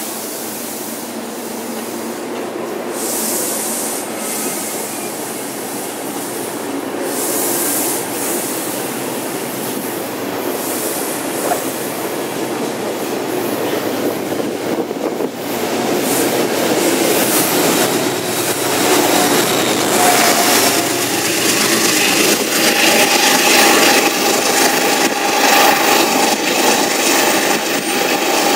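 Metro-North Shoreliner coach train rolling past a station platform at speed, with a steady rush and rumble of wheels on rail. About halfway through it gets louder, and a high whining tone joins it in the second half.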